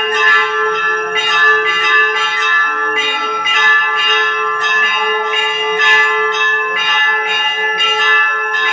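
Hindu temple bell rung steadily for the evening aarti, struck about twice a second so that its ringing never dies away.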